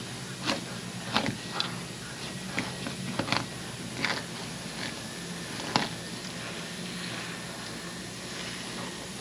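Fillet knife cutting along a speckled trout's backbone, with short, irregular crunches and scrapes as the blade passes over the bones, over a steady low hum.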